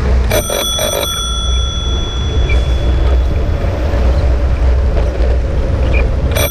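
Bicycle handlebar bell rung in a quick run of three or four strikes, the metallic ringing fading over a couple of seconds, then rung again near the end: a warning to pedestrians walking in the bike lane. A steady low rumble of wind and traffic runs underneath.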